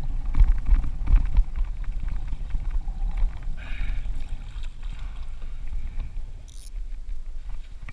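Wind rumbling on an action camera's microphone, over water slapping and splashing against a plastic kayak hull where a hooked tarpon is being brought alongside. A run of knocks comes in the first second or so.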